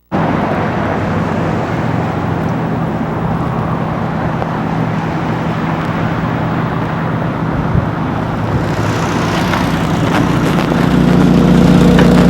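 Chevrolet car running, a steady drone with a held low tone that grows louder about ten seconds in: the strange noise the owner is recording.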